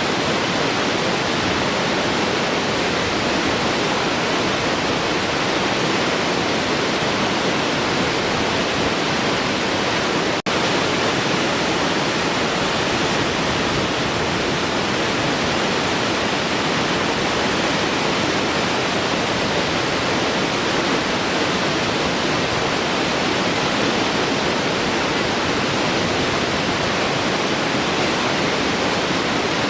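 Large waterfall flowing, a steady, even rush of falling water. A split-second dropout breaks it about ten seconds in.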